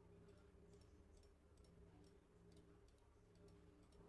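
Near silence: a faint steady electrical hum with a few scattered faint ticks.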